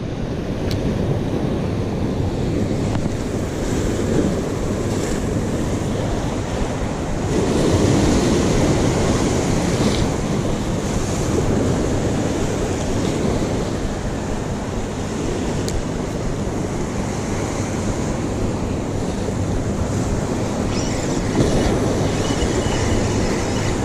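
Ocean surf breaking and washing over rocks, with wind rumbling on the microphone; the wash swells louder once about eight seconds in.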